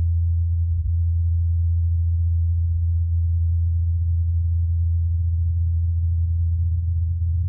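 Ingenuity Mars helicopter's twin rotor blades humming as they spin at 2,537 rpm, a steady low hum with a little wind noise, heard through the Perseverance rover's SuperCam microphone on Mars.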